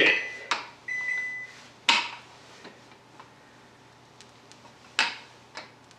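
Metal rolling pin working pizza dough on a wooden board, with two sharp knocks about two and five seconds in and a few lighter taps between. About a second in, a short single-tone electronic appliance beep.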